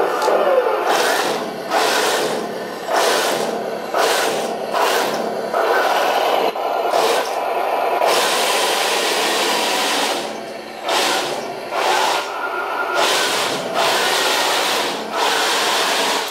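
RC model tank's electric drive motors and full-metal tracks grinding and clattering on a wooden floor, in short stop-start bursts about once a second with one longer run about halfway through.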